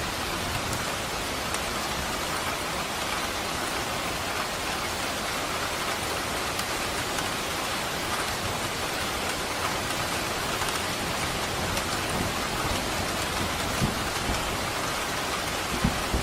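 Steady, heavy rain falling on surfaces, an even wash of drops, with a couple of brief low thuds near the end.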